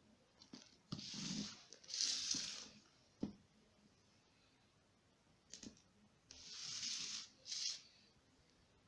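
Several short bursts of rustling, tearing-like noise with a few sharp clicks between them.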